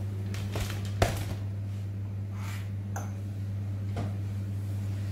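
Kitchen handling noises at a gas stove as oil is poured into a wok: a sharp knock about a second in and a few lighter clicks and taps later, over a steady low hum.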